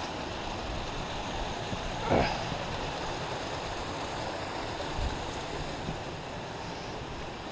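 Steady rush of wind over a head-mounted action camera's microphone while walking uphill. There is a short falling pitched sound about two seconds in and a faint thump about five seconds in.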